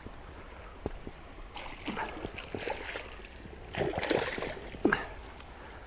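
Water splashing in short irregular bouts, about a second and a half in and again about four seconds in: a hooked pike thrashing as it is landed.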